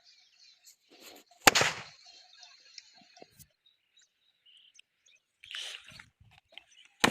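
A Diwali firecracker bomb going off with a single sharp bang about one and a half seconds in, followed by a brief echoing tail. A second sharp bang starts right at the end, with faint bird chirps between.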